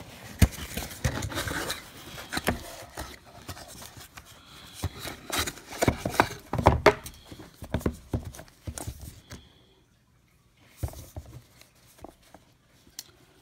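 A knife blade cutting through the tape of a cardboard shipping box, and the box being pried open and handled: a busy run of scrapes, rustles and knocks that falls away to a few soft clicks for the last few seconds.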